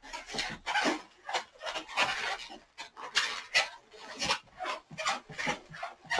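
Inflated 260 latex modelling balloon squeaking and rubbing under the fingers as it is twisted into small bubbles: a run of short, uneven squeaks, a few a second.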